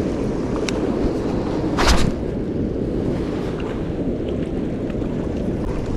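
Turbulent white water rushing steadily down a concrete-lined channel, with wind on the microphone. A brief rustling burst comes about two seconds in.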